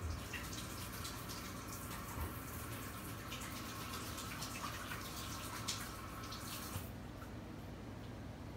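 Kitchen tap running while hands are washed under it, with a few small clicks and splashes; the water is turned off abruptly near the end.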